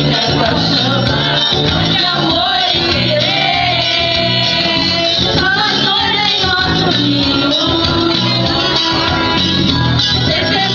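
A song playing: a wavering sung melody over a band with bass and guitar, at a steady level throughout.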